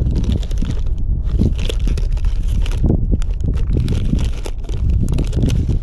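Plastic soft-bait packets crinkling and rustling as they are flipped through in a tackle binder, in irregular bursts. A heavy low rumble of wind buffeting the microphone runs underneath and is the loudest part.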